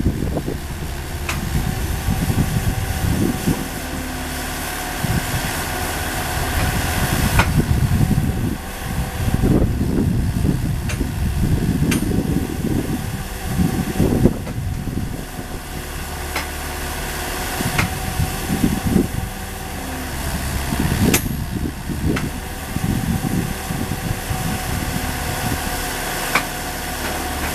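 Engine running steadily to power hydraulic pipe-bursting equipment, its low rumble swelling and easing irregularly as the load changes, with a faint steady whine. Sharp metallic clanks come every few seconds as the steel rods and machine are worked.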